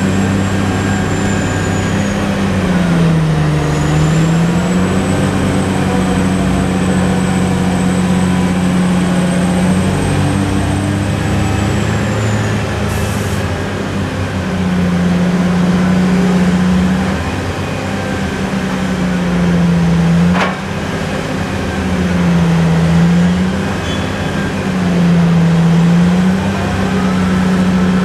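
Diesel engine of a Bauer MC 64 crawler crane running hard, its pitch dipping several times as the winches take the load of the diaphragm-wall grab. A faint high whine sounds through the first half, and there is a single sharp clank about twenty seconds in.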